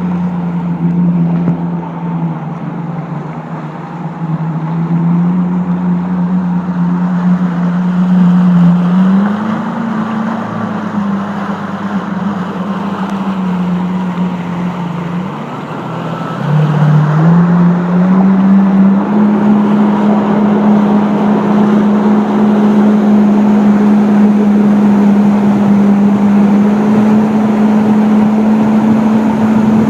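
Jet ski engine running under way, with the rush of water and wind. Its pitch steps up about nine seconds in, drops around fifteen seconds, then climbs again and holds steady and louder for the second half.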